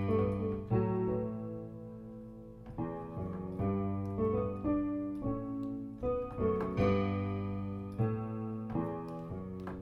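Piano sound from a MIDI keyboard playing a repeating rhythm pattern of sustained chords, each struck afresh about once a second.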